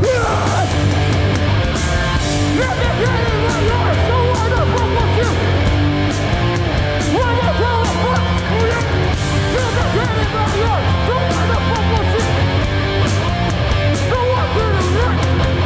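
Hardcore punk band playing live and loud: distorted electric guitars, bass and drums with steady cymbal hits.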